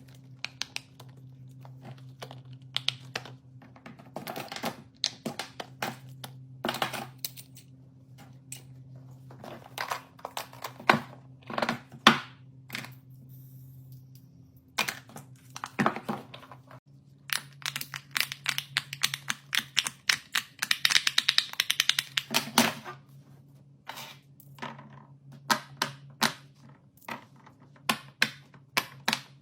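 Irregular sharp clicks and taps of small fidget toys being handled and pressed, with a dense burst of clicking and rustling midway, over a steady low electrical hum.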